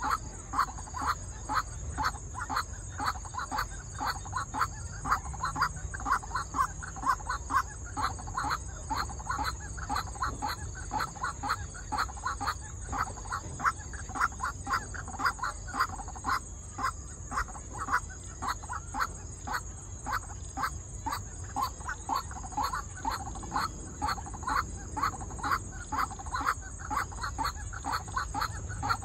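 White-breasted waterhen calling: a long, monotonous run of short repeated croaking notes, about two or three a second.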